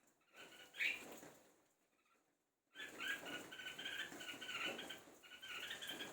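A pet bird calling in rapid, repeated chattering notes with rustling or fluttering beneath: one short bout about half a second in, then a longer bout of about three seconds from near the middle. It is excited by the sound of rain.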